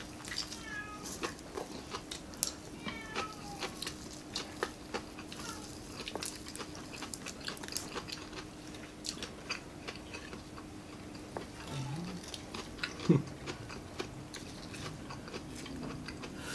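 Close-up eating sounds: wet mouth clicks, lip smacks and chewing while grilled fish is torn apart by hand and eaten, with a louder knock about thirteen seconds in. A few short high falling squeaks sound in the first few seconds, over a faint steady hum.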